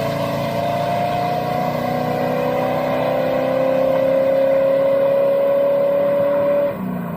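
Car engine running with a steady pitch that slowly falls, then cuts off abruptly at the end.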